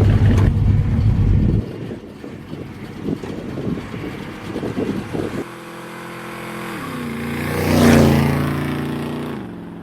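A car's engine approaching and driving past, its note growing louder, then dropping in pitch as it passes about eight seconds in, and fading away. Before that, a loud low rumble cuts off after about a second and a half.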